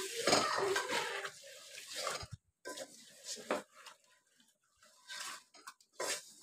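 Spatula stirring and scraping mutton pieces in a thick spice paste inside a metal pot, in irregular strokes with short pauses, as the meat is sautéed in the masala.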